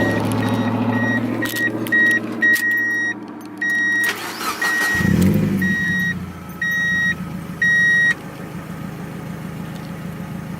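A car engine cranks and catches about five seconds in, then settles into a steady idle. Through the first eight seconds a dashboard warning chime beeps over and over, in quick short beeps at first and then slower, longer ones.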